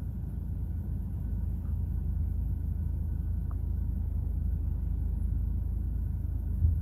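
Low, steady rumble of a vehicle heard from inside its cab as it rolls slowly in traffic, with a faint steady whine above it and one low thump near the end.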